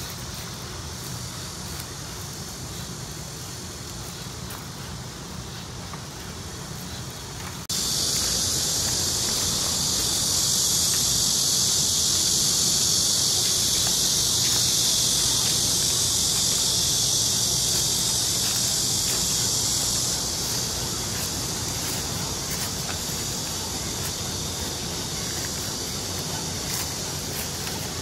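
Steady high-pitched insect chorus, faint at first and suddenly much louder about eight seconds in, easing off a little later on.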